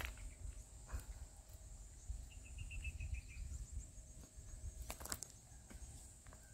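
Faint outdoor ambience with wind rumbling on the microphone, broken by a few sharp clicks of wire cable strands being bitten and bent in the teeth. A short run of bird chirps comes about two to three seconds in.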